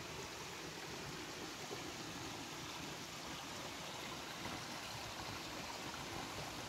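Stream water running over rocks and a small waterfall: a steady, even rush of water.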